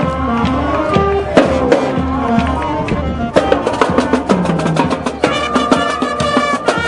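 Music with percussion and pitched instruments, changing to a faster, busier rhythm about five seconds in.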